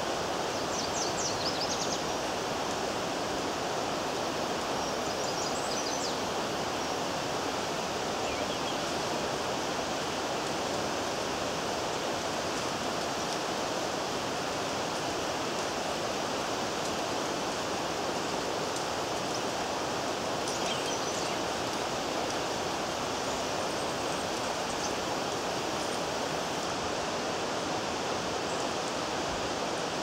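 Steady rushing of a stream, with a few faint high bird chirps about a second in, around five seconds in, and again around twenty seconds in.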